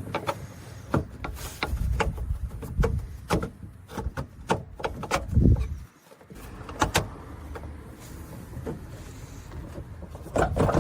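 Irregular metal clicks and knocks as the pivot rod is worked back through the tractor seat's mounting brackets, with a heavier thump about halfway through.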